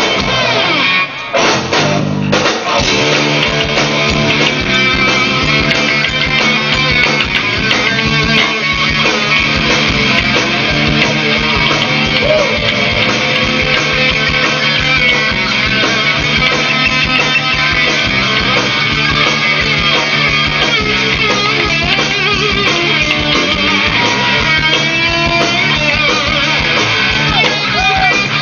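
Live rock band playing, electric guitars to the fore over bass and drums, with a brief break about a second in before the band comes back in.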